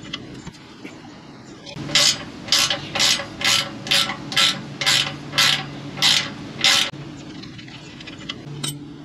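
Ratcheting wrench clicking through about ten short strokes, roughly two a second, as it loosens a bolt at the exhaust pipe's flange joint.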